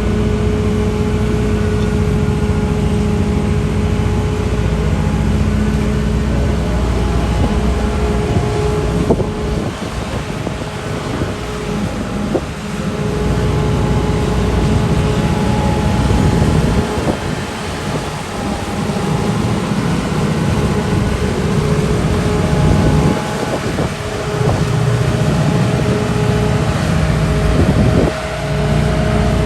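Liebherr A934C wheeled excavator's diesel engine running, with a steady whine above the engine note. The level dips and rises again a few times.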